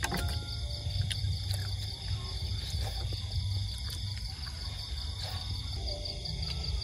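Steady high-pitched chorus of night insects, over a low rumble, with a few short clicks.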